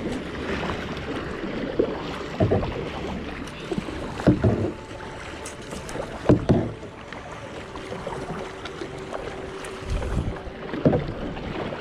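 Kayak paddle strokes dipping and splashing in river water, roughly one every one to two seconds, over a steady wash of moving water.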